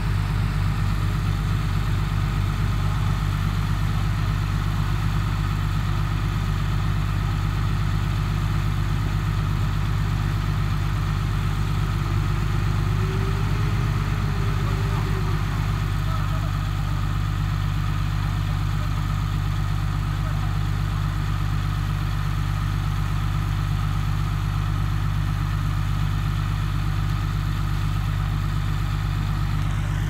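Diesel engine of heavy construction machinery running steadily at an even speed, a deep constant hum with no revving.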